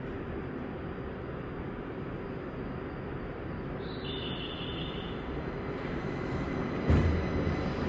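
Linimo HSST low-speed maglev train approaching and gliding past close by on its elevated guideway: a steady rushing hum that swells slightly as it nears. A brief high tone sounds about four seconds in, and a sudden low thump comes about seven seconds in as the cars go by.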